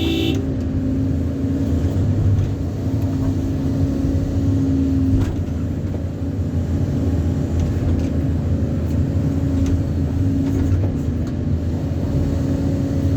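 A vehicle engine running at a steady speed, a low even drone with a few faint ticks.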